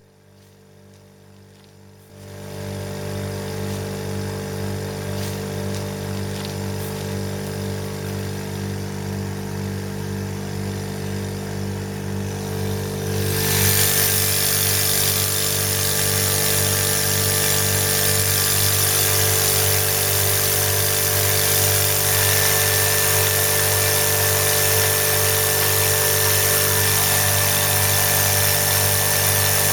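An old electric air compressor starts up about two seconds in and runs steadily with a hum and a fast regular pumping beat. About thirteen seconds in it gets sharply louder and brighter and stays that way. It is the compressor the owner calls extremely noisy.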